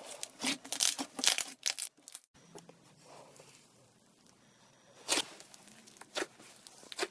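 Thick slime squeezed and pressed by hand: a fast run of sticky pops and crackles over the first two seconds, then after a short break a few single pops, about five, six and seven seconds in.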